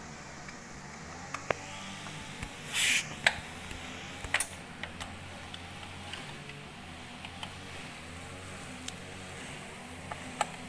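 Small metallic clicks and taps of a hand-held Allen key working the screws of a motorcycle's belly-pan cover, with a brief scraping rustle about three seconds in. A steady low hum runs underneath.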